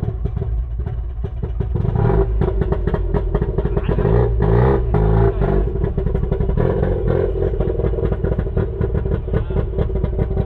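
A motor vehicle's engine running with a fast, even firing beat, revved up and back down about four to five seconds in.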